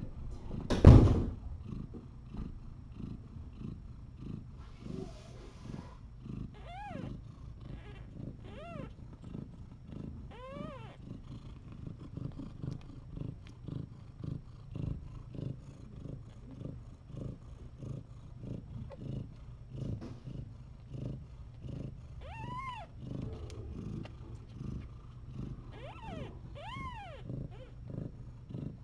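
Mother cat purring steadily while nursing her kittens, with a few short, high, rising-and-falling kitten squeaks over it. A loud thump about a second in.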